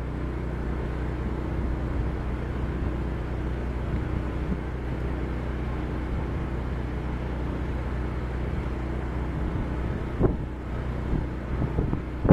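A moored tall ship's engine running steadily, a low even hum. A sharp knock comes about ten seconds in, followed by a few smaller bumps.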